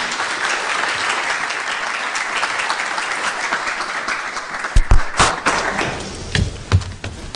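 Audience applauding, a steady patter that dies away about six seconds in. Several dull thumps and knocks come about five seconds in and again near the end.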